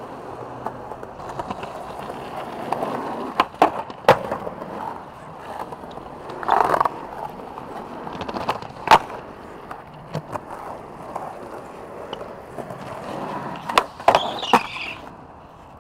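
Skateboard wheels rolling over rough pavement, with sharp clacks of the board striking the ground a few times: a pair about 4 seconds in, one about 9 seconds in and a cluster near the end. A louder scrape around the middle, and a brief high squeal near the end.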